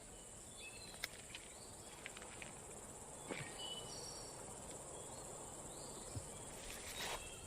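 Faint background ambience of crickets: a steady high insect trill with scattered short chirps and a few soft clicks.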